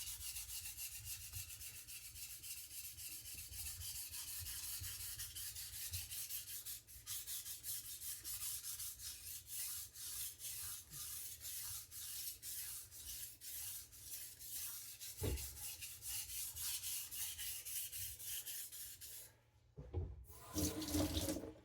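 A soft-steel Victorinox knife blade being ground back and forth on a coarse sharpening stone, in quick, even rasping strokes, while the edge is reprofiled and a lot of metal is removed. The strokes stop near the end, followed by a couple of short knocks.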